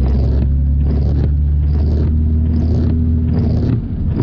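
Car driving in heavy rain, heard from inside the cabin: a steady engine and road drone, with a regular swish about once a second.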